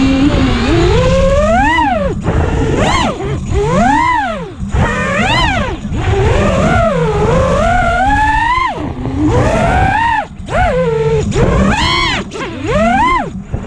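FPV racing quadcopter's brushless motors whining, the pitch swooping up and dropping back again and again as the throttle is punched and chopped. Heavy rushing noise from prop wash and wind runs underneath.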